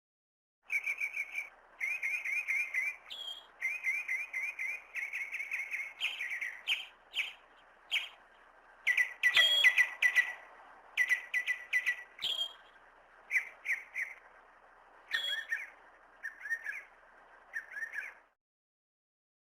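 Bird chirping in quick repeated runs of short, high notes, broken by brief pauses, over a faint steady background hiss; it starts just under a second in and stops about a second before the end.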